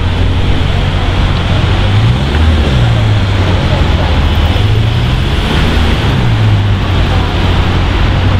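Porsche 911 GT3 RS's naturally aspirated flat-six engine running at low speed as the car creeps forward, its pitch rising briefly about two seconds in and again near six seconds on light throttle, then settling back.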